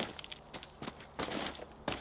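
Footsteps in boots on an earth floor littered with dry leaves and wood shavings: several short, irregular scuffing steps.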